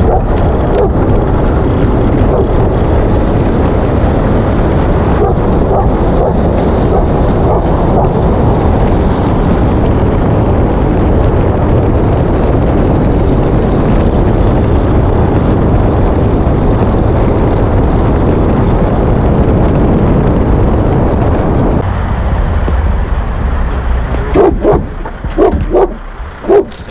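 Steady noise of a moving vehicle, then a Cane Corso barking in a quick run of about half a dozen barks near the end.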